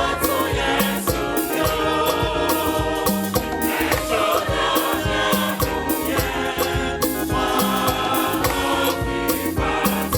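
A choir singing gospel music with band accompaniment, over a steady drum beat.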